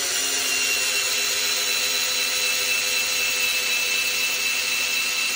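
WorkPro cordless electric screwdriver running steadily, its motor whining as it drives a long construction screw into wood.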